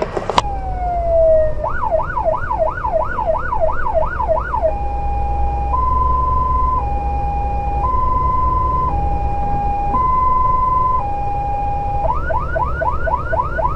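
Fire engine's electronic siren heard from inside the cab on an emergency run, over the low running of the engine. After a click and a short falling tone it gives a fast rising-and-falling yelp, about three sweeps a second. It then switches to a two-tone hi-lo, alternating pitch about once a second, and goes back to the fast yelp near the end.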